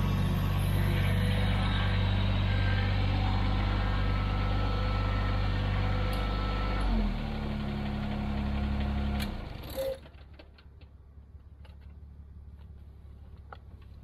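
Kubota BX23s compact tractor's three-cylinder diesel engine running steadily. Its note changes about seven seconds in, and it shuts off just before ten seconds in, leaving only a few faint clicks.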